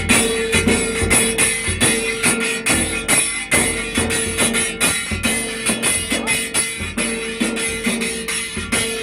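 Village dhol drums beaten in a fast, steady rhythm, about four strokes a second, with metal jingles over them and a held melodic note sounding in phrases.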